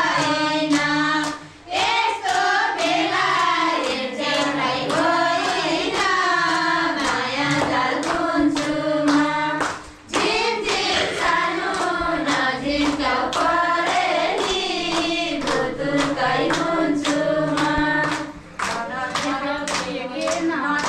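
A group of women singing a Nepali folk song together, clapping along in a steady beat. The singing drops out briefly twice, about a second and a half in and again around the middle.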